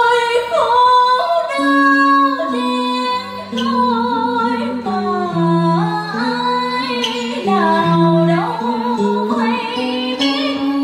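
Live cải lương stage music: a high melodic line of held notes that slide between pitches, over a lower accompaniment stepping from note to note.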